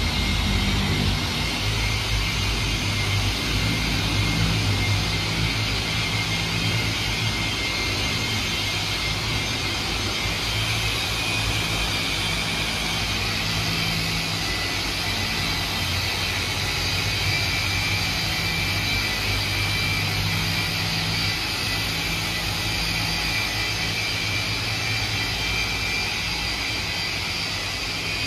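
Two electric orbital polishers running steadily with a continuous drone and whine, buffing polish into car paint: the polishing stage before a ceramic coating.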